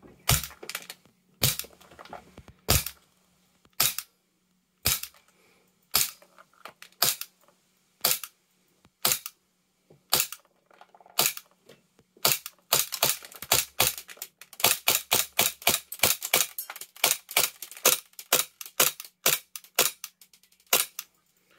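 Armorer Works VX0200 gas blowback airsoft pistol firing on green gas, each shot a sharp crack with the slide cycling. Single shots come about a second apart at first, then quicker strings of shots from about halfway through.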